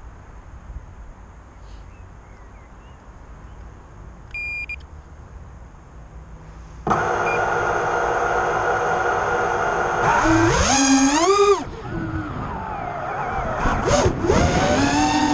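FPV quadcopter's electric motors: a short beep about four and a half seconds in, then the motors start spinning about seven seconds in with a steady whine. The whine climbs sharply in pitch about ten seconds in as the drone lifts off, then rises and falls with the throttle.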